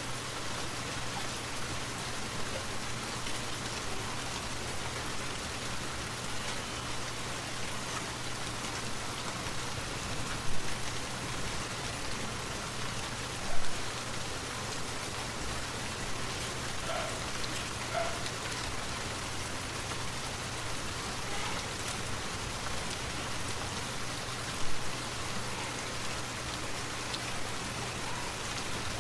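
Steady rushing water of a forest waterfall, an even hiss with no let-up, with three brief louder splashes about ten, fourteen and twenty-five seconds in.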